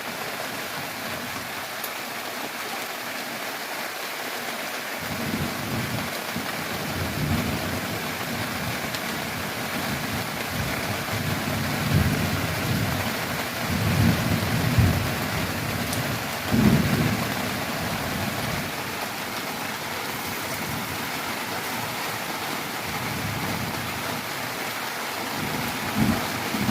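Steady rain falling, with thunder rumbling low underneath from about five seconds in and swelling louder several times through the middle and near the end.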